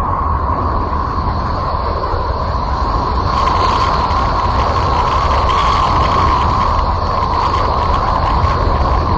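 A 'planet sound from space' sound effect: a steady, loud rumbling drone with a rushing hiss. It grows brighter and hissier from about three seconds in.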